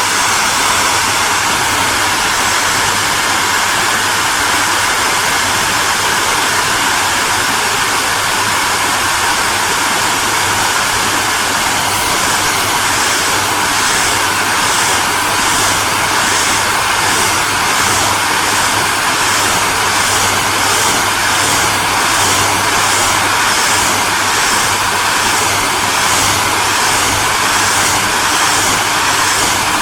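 Hairdryer running steadily: a constant rushing hiss of air over a low motor hum. A faint regular pulsing, about once a second, comes into the high part of the hiss about twelve seconds in.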